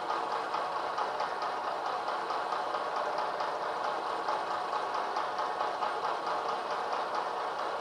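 Vertical milling machine running an end mill through a metal casting: a steady cutting noise with a fast, even chatter from the cutter teeth.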